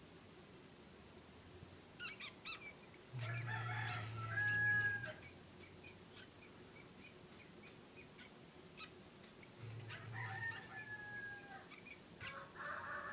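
A cat giving a few short meows and chirps, the last a falling meow near the end; a few faint clicks about two seconds in.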